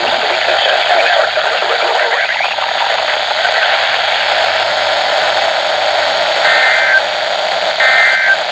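Weather radio reception hissing with heavy static, then about six and a half seconds in, two short bursts of warbling two-pitch data tones a little over a second apart: the SAME digital code of an Emergency Alert System test, their brevity typical of the end-of-message code.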